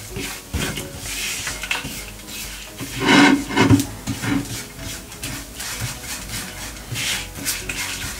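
A spatula stirring and scraping grated coconut as it roasts in a non-stick frying pan: a run of short scraping strokes, louder for a moment about three seconds in.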